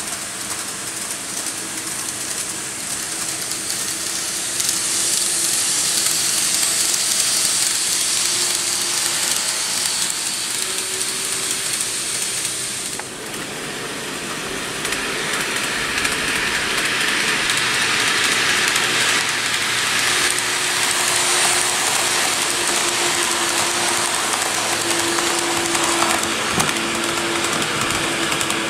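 KATO N-gauge 115-series model train running on layout track: a steady rolling hiss of wheels on rail with a faint steady hum. It grows louder about four seconds in, dips briefly near the middle, then builds again.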